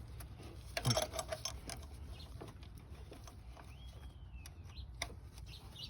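Light clicks and metal taps from a 10 mm wrench loosening a bolt, the loudest cluster about a second in. A single faint bird chirp, rising then falling, about four seconds in.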